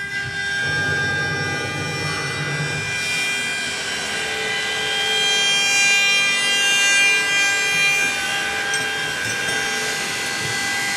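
CNC router spindle running at speed: a steady high whine made of several tones. A lower hum joins it for a couple of seconds near the start.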